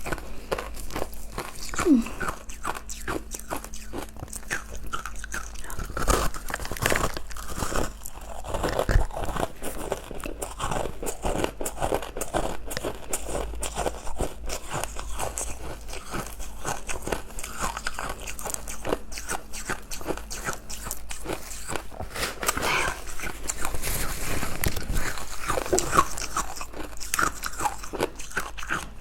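Close-up crunching and chewing of soft, powdery ice dusted with matcha powder: steady dense crackle of the ice breaking between the teeth, with a few louder bites.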